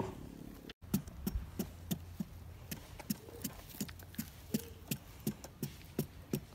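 Knife cutting the rind off a whole pumpkin in short, even strokes, a sharp tick about three times a second, starting about a second in.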